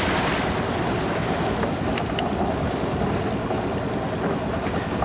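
Boat under way at sea: a steady rush of churning wake water and wind, with two faint clicks about two seconds in.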